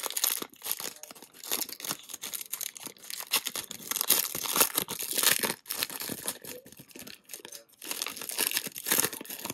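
Foil wrapper of a Panini Select basketball card pack being torn open and crinkled by hand: a run of crackling tears, loudest around halfway and again near the end, with a quieter lull between.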